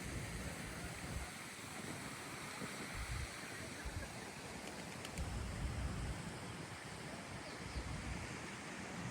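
Steady outdoor rushing ambience, with irregular low gusts of wind buffeting the microphone.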